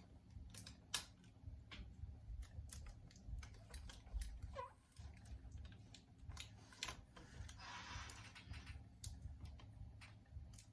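Irregular light clicks and taps of small objects being handled, with a short rustle about eight seconds in, over a low steady hum.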